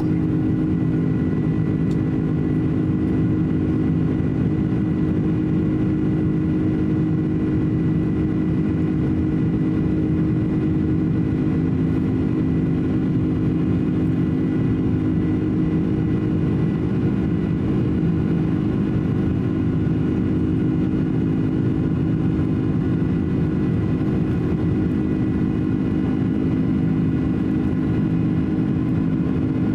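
Boeing 767-300 airliner's turbofan engines and airflow heard steadily from inside the cabin in flight: a constant drone with a low hum and a thin high whine.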